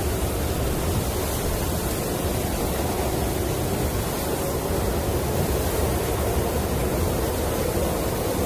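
Snowstorm wind blowing steadily, a dense, even, low rushing noise with no separate gusts or knocks.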